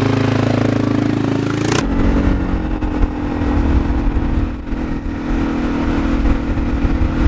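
ATV engine running at a steady idle, then from about two seconds in an ATV engine pulling steadily under way, with wind rumble on the microphone.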